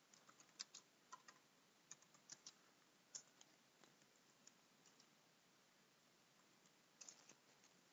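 Faint computer keyboard typing: a quick run of keystrokes over the first three seconds, a few scattered ones after, and a short cluster near the end.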